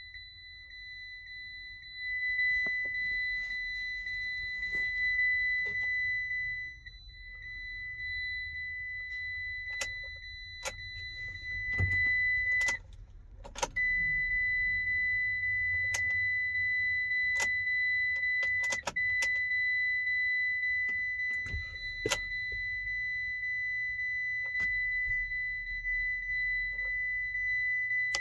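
A steady high electronic warning tone sounds almost without pause, breaking off for about a second midway, while keys jangle and the ignition key is turned with several sharp clicks. The 2008 Iveco Daily does not crank: the immobiliser or key-lock fault from a lost remote key keeps it from starting.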